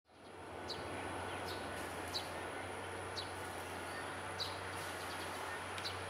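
Juvenile Eurasian tree sparrow chirping: six short, high, falling chirps, about one a second, over a steady background rumble.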